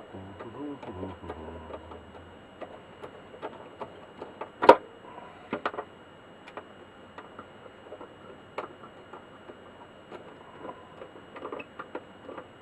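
Scattered clicks and taps from handling and opening the case of a Nuclear Enterprises gamma dosemeter, with one sharp knock about four and a half seconds in. A brief low hum comes in the first two seconds.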